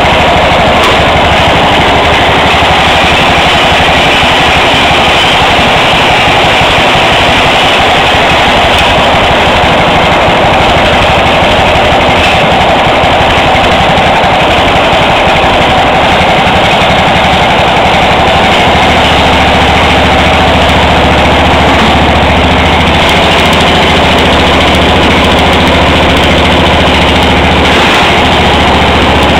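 Murray riding lawn tractor's swapped-in 16.5 hp engine running loudly and steadily, with a fast, rattling beat.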